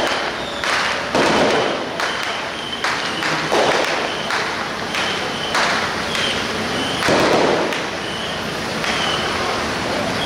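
Firecrackers going off in irregular crackling bursts, one every second or two, over many sharp single pops. The low, steady run of a truck's diesel engine sits underneath.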